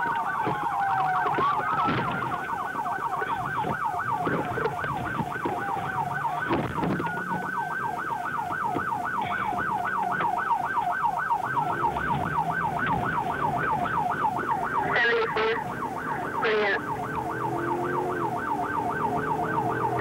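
Police car electronic siren on a pursuit: a slow falling wail, then about two seconds in it switches to a rapid up-and-down yelp. The cruiser's engine runs underneath, and two short sharp sounds cut in near the end of the yelp.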